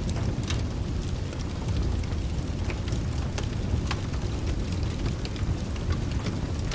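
Steady rain with a continuous low rumble beneath it, and a wood fire crackling with scattered sharp pops over the top.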